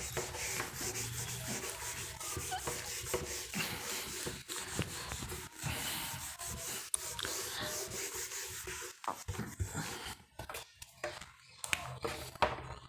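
Scratchy rubbing and scraping, a dense run of short strokes that thins out to scattered strokes and taps after about nine seconds.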